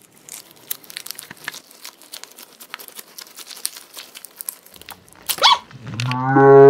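Homemade stress balls filled with Orbeez water beads being squeezed and kneaded by hand, giving a run of small squishing clicks and crackles. About six seconds in, a loud, drawn-out pitched sound starts and becomes the loudest thing.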